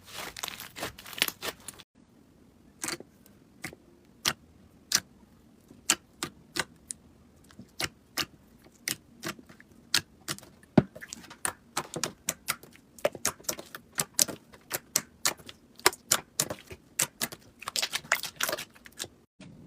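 Slime being pressed and poked, giving a quick, irregular series of sharp clicking pops, with a cut to another clip about two seconds in.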